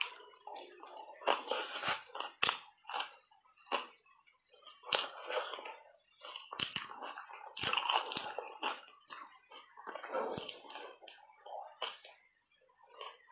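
Mouth biting and crunching round ice balls coated in sticky matcha powder: a run of irregular sharp cracks and crunches, with short pauses between bites.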